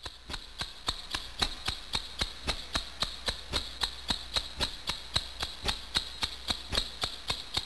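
A steady rhythm of sharp clicks or taps, about four a second, over a faint hiss.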